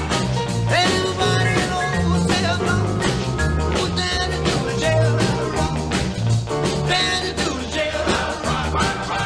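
Background rock and roll music with a steady bass line.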